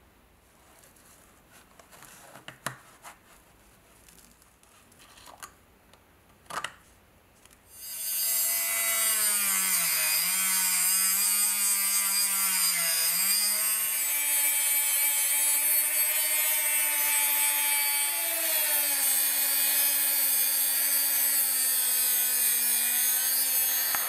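A few light clicks, then about a third of the way in a small electric rotary tool with a thin abrasive cut-off disc starts up and cuts through a steel pin in a high, steady whine. Its pitch sags twice as the disc bites into the metal.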